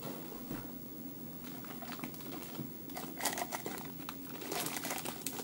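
Packaging being handled, crinkling and rustling in bursts. It starts with a few light ticks and grows busier from about three seconds in.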